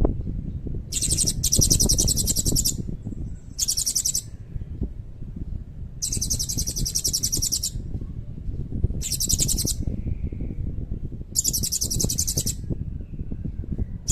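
Blue-crowned hanging parrot (serindit) calling in about six short bursts of very high, rapid trilling, separated by pauses of a second or more. A steady low rumble runs underneath.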